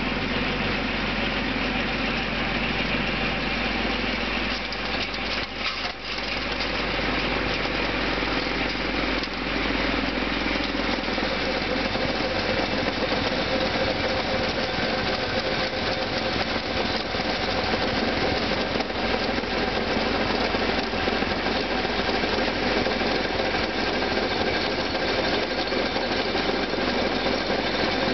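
Kubota B2400 compact tractor's three-cylinder diesel engine running steadily while driving a Lorenz 430 snowblower. The sound dips briefly about five or six seconds in, then carries on.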